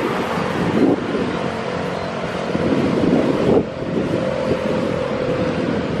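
Wind buffeting the microphone in a steady rumble, with a faint steady hum joining about halfway through.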